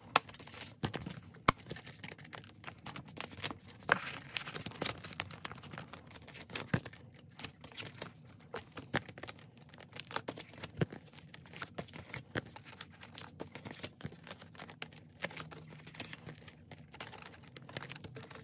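Vinyl zippered cash envelopes in a ring binder crinkling and rustling as they are handled and filled with bills, with scattered sharp clicks and taps throughout.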